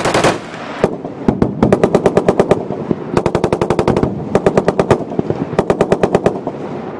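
Belt-fed machine gun fired in short bursts: a burst at the start and a single shot, then four bursts of about a second each at roughly ten rounds a second, with brief pauses between them.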